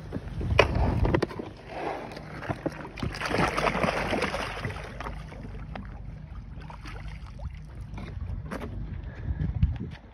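Live mirror carp tipped out of a plastic crate into a pond, splashing into the water for a couple of seconds about three seconds in. Before it, knocks and scuffing as the crate is carried down the bank and lowered.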